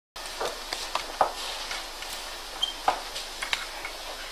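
Irregular sharp knocks from a small hammer tapping at the wedge that locks the rotor of a neodymium-magnet motor, over low room noise.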